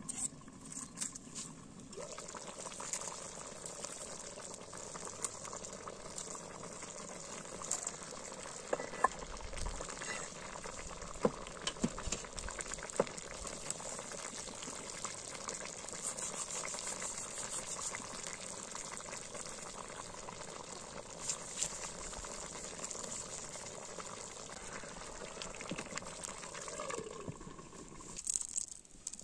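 Food cooking in a pot over an open fire: a steady hiss with scattered small pops, starting about two seconds in and stopping shortly before the end.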